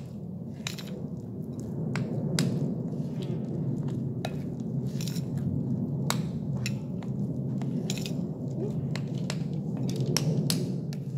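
A metal spoon stirring a thick wheat- and rice-flour batter in a glass bowl: a steady mushy churning with frequent sharp clicks as the spoon knocks against the glass.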